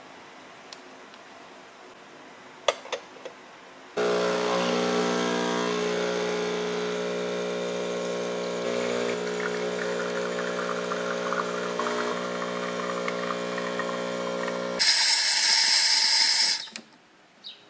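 A few light clicks, then a De'Longhi espresso machine running with a steady buzzing hum for about eleven seconds. The hum stops abruptly and is followed by a loud hiss of about two seconds that cuts off suddenly.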